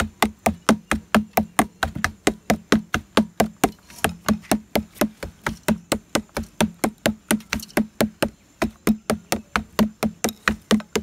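Wooden mallet beating a bound coconut flower spathe in quick, even knocks, about four a second. This is the tapper's alternate-day beating of the spadix to bring on the flow of padhaneer (sweet coconut sap).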